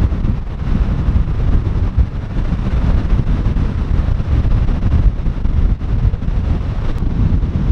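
Strong wind buffeting the microphone in uneven gusts, a loud low rumble over the noise of rough surf.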